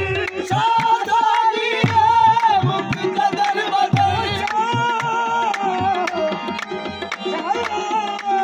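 Qawwali music: tabla drumming under a sustained, gliding melodic line.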